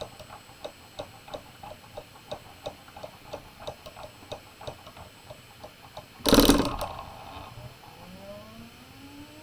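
A permanent magnet driven back and forth by an oscillator-fed electromagnet, clicking in its housing about three times a second. A little after six seconds there is a short loud burst of noise, and then a faint tone rises steadily in pitch as the oscillator rate is raised.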